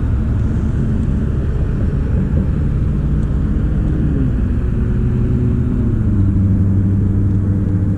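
A boat motor running steadily with a low rumble. Its hum drops in pitch about four seconds in and shifts again about six seconds in.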